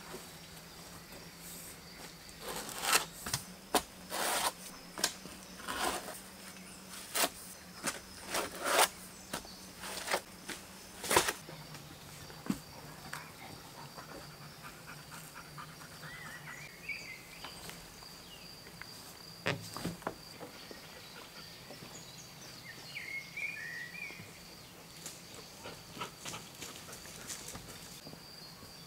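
Forest ambience with a steady high insect trill. Over it come a string of irregular sharp knocks and clicks, mostly in the first half and one more about two-thirds through. Two short bird chirps come in the second half.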